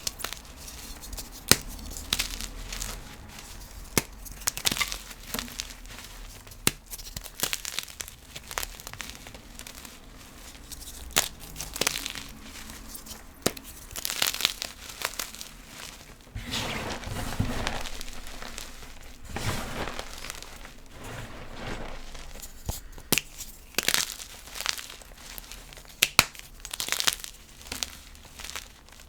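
Blocks of gym chalk being crushed and crumbled, a run of crisp crackles and snaps with several longer powdery crunches in between.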